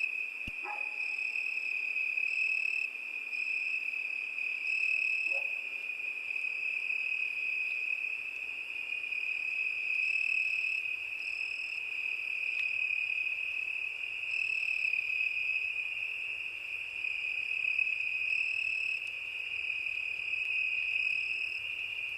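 Crickets trilling in a steady, unbroken night chorus, with a second, higher-pitched insect call coming in short repeated bursts over it.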